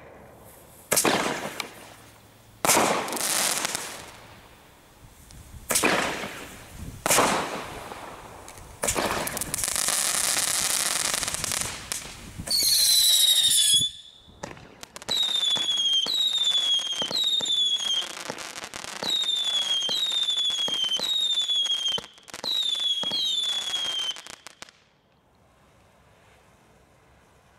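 Gun Powder Selection Box consumer fireworks going off. Four sharp bangs with hissing tails in the first eight seconds give way to a steady hiss, then a falling whistle, then about a dozen falling whistles in quick succession. All of it stops a few seconds before the end.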